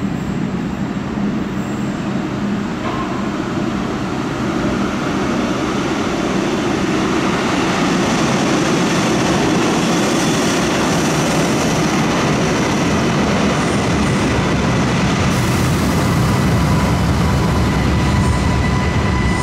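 Yellow Stadtbahn light-rail train running into an underground station, its noise building over the first several seconds and staying loud and steady as it passes along the platform.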